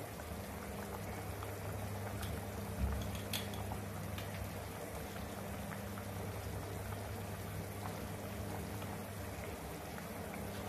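Pot of beef in soy sauce gravy simmering on a gas stove: soft bubbling with a few scattered small pops over a steady low hum.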